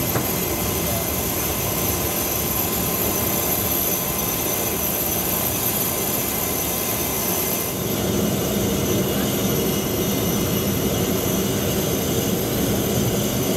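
Cabin noise of a Cessna 208B Grand Caravan taxiing: its single Pratt & Whitney PT6A turboprop runs at a steady whine with propeller drone. The tone shifts slightly about eight seconds in.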